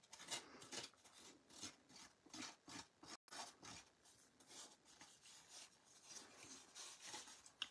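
Scissors' pivot joint scraped along the edge of a card-stock panel, a run of faint scraping strokes, about two or three a second, roughing up and distressing the paper edge.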